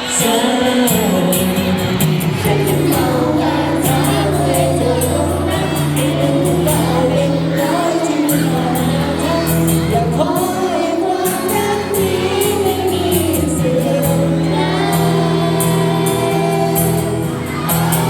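A voice singing a melody over backing music with a steady beat.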